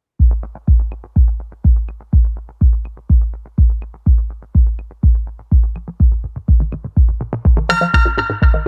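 Electronic dance music: a steady thudding kick drum at about two beats a second, joined near the end by brighter synth chords.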